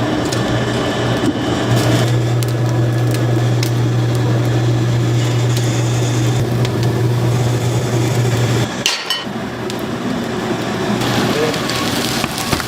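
Kitchen clatter: many sharp knocks and clinks of metal and dishes over a dense noisy background, with a steady low hum that stops about nine seconds in.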